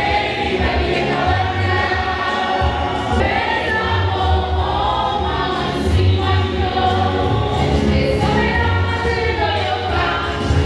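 A choir of schoolgirls singing a lively gospel song together, some through microphones, over a deep pulsing bass.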